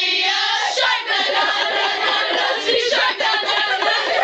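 A group of girls singing and shouting together loudly, their voices overlapping, with a wavering high whoop at the start and hand clapping.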